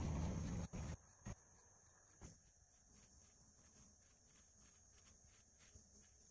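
Insects chirping outdoors in a steady high-pitched trill that pulses rapidly. In the first second there is a loud burst of rustling noise, followed by a few soft knocks.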